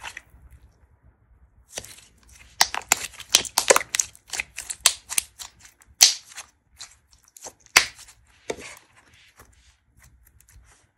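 Thick, glossy slime squeezed and folded between the hands, giving a quick run of sharp clicking and popping from trapped air being pressed out. The two loudest pops come about six and eight seconds in, and near the end only faint soft pressing is left.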